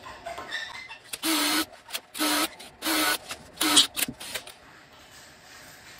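Power drill run in four short bursts about a second apart, a bit drilling oiled tap-drill holes for 8-32 threads in steel plate.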